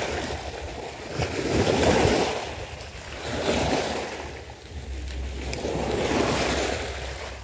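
Small waves washing in and out over a pebble shore, the surge swelling and fading every couple of seconds.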